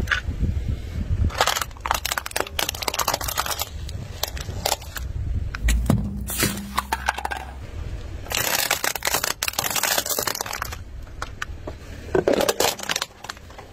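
Car tyre rolling over and crushing thin aluminium cups and plastic objects on asphalt: several bouts of crunching, crackling and snapping, over a low rumble of the tyre.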